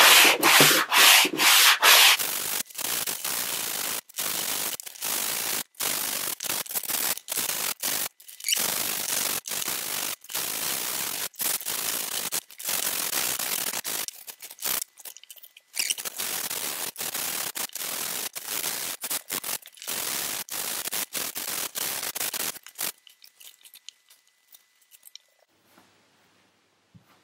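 120-grit Permagrit abrasive tool sanding a foam wing core in repeated back-and-forth strokes with short pauses between them. The strokes are louder for the first couple of seconds and stop about 23 seconds in.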